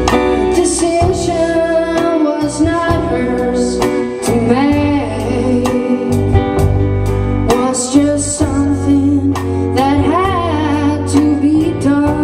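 Live rock band playing: a woman singing over electric guitar, bass and drums.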